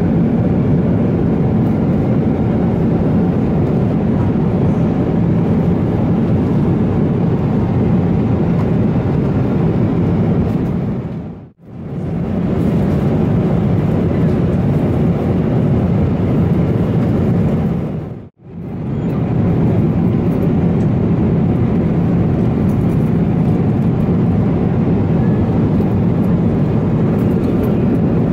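Steady low rush of airliner cabin noise inside a Boeing 777-300ER, the engines and airflow heard through the cabin. It fades out almost to nothing and back twice, once a little before halfway and once about two-thirds through.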